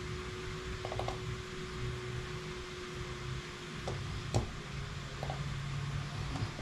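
Steady low room hum with a faint steady tone for the first four seconds. Over it come a few short soft clicks, the sharpest about four and a half seconds in.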